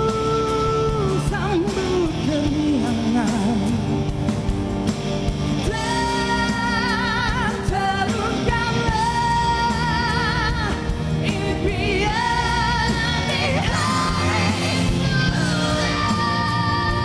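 Malay pop ballad duet sung live over a band: lower sung lines at first, then from about six seconds in long, high held notes with vibrato.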